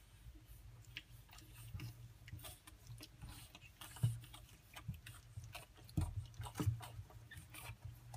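Young pug puppies scuffling and play-wrestling on fleece bedding: scattered soft taps, scrapes and mouthing sounds, with a few louder knocks about four and six seconds in. A low steady hum runs underneath.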